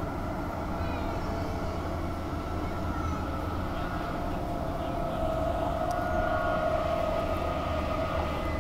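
Interior noise of a Transperth A-series (Walkers Limited) electric multiple unit running along the track: a steady rumble with a whine that grows a little louder about five seconds in.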